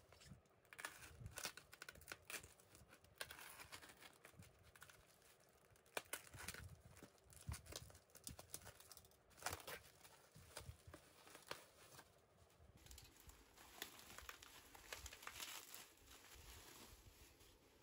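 Plastic packaging and bubble wrap crinkling and rustling with irregular crackles as a padded parcel is pulled open by hand.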